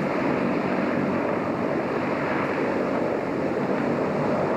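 Passenger ferry running with a steady, even rushing noise and a low engine hum beneath it.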